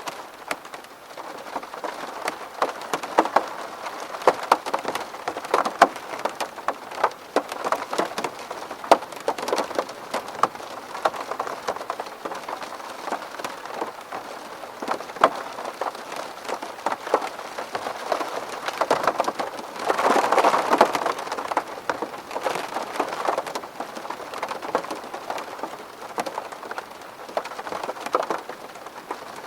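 Rain falling on a window pane: a steady hiss with many sharp drop taps, heavier for a moment about twenty seconds in.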